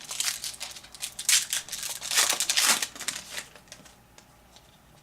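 Wrapper of a trading-card pack being torn open and crinkled: a run of crackling rips, loudest in the middle, that stops about four seconds in.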